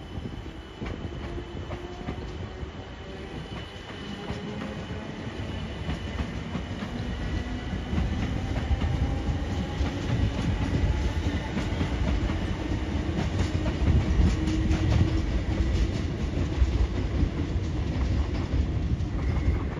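A train running through on the rails, growing louder over the first half as it comes close. Wheels click over the rail joints with a low rumble, under faint, shifting whining tones.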